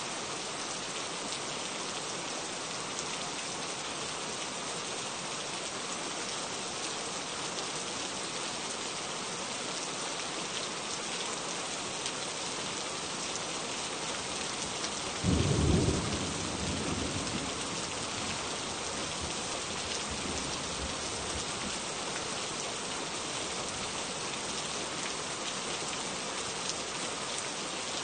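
Steady rain falling, with one sudden clap of thunder about halfway through that rumbles away over a couple of seconds.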